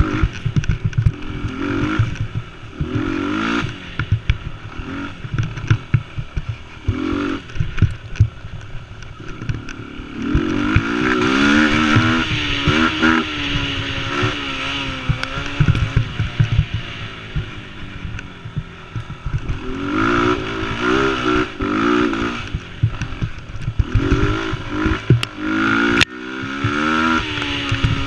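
Mini quad's small engine close to the microphone, revving up and down as it is ridden along a bumpy trail, with strong climbs in revs about a third of the way in and again about two-thirds in. Frequent knocks and rattles run through the engine sound.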